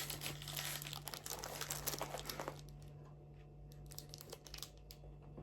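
Packaging crinkling and tearing as a parcel is opened by hand, dense for the first two and a half seconds, then fainter handling clicks, over a steady low hum.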